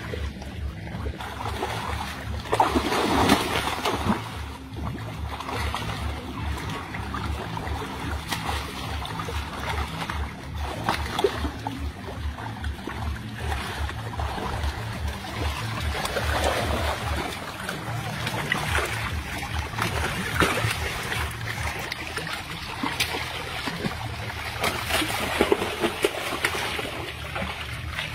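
Water splashing and sloshing as people wade waist-deep and handle large fish in the water, with a low rumble through the first half.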